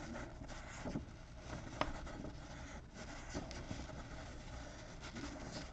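Faint rustling and handling noises with a few short clicks, one sharper tap about two seconds in.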